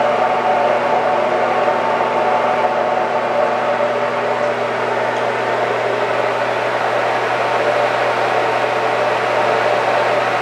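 Steady machine hum of an idling CNC lathe with its spindle stopped: a low drone under an even, fan-like whir that does not change.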